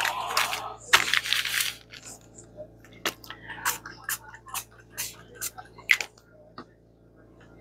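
Crumpled kraft paper rustling and crinkling as a sheet is laid down, then a run of short sharp spritzes from a small pump spray bottle of stain, about two a second.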